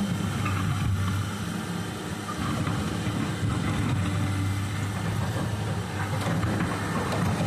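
Excavator's diesel engine running steadily, with a few faint knocks near the end.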